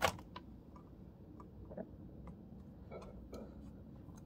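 Small clicks and taps of a graphics card's cover and screws being handled while trying to pull the card apart: one sharp click at the start, then scattered faint ticks.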